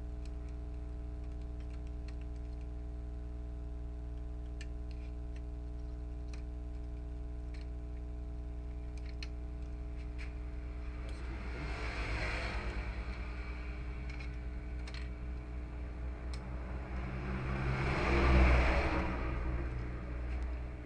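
Faint clicks and taps of small printer parts being handled while a new flex cable is fitted into an Epson L3110 printer, over a steady hum. A broad rushing noise swells and fades twice, about halfway through and more loudly near the end.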